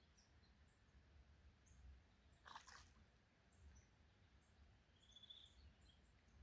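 Near silence: faint outdoor ambience with a low rumble, scattered short high chirps, a brief rustle about two and a half seconds in, and a short trill about five seconds in.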